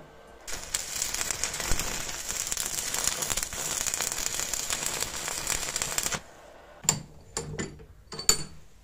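Electric arc welding a ribbed steel rod onto a steel ingot: a steady crackling sizzle of the arc for about six seconds, stopping abruptly. A few sharp metal clanks follow near the end as the welded piece comes out of the vise.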